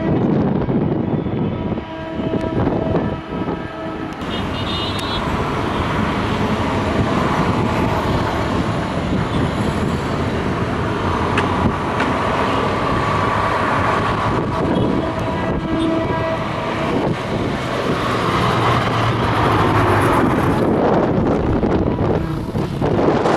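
Coach bus running past on the road with steady, loud traffic and engine noise, and horn tones sounding at times.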